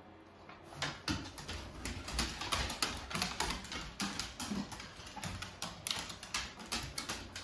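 Siberian husky's claws clicking and tapping on a hardwood floor as it paces, a quick, irregular run of clicks starting just under a second in.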